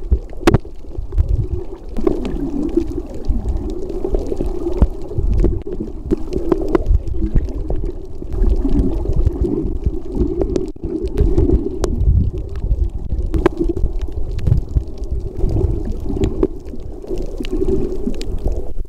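Muffled underwater noise picked up by a submerged camera: a low, wavering rumble and gurgle of moving water, with scattered sharp clicks.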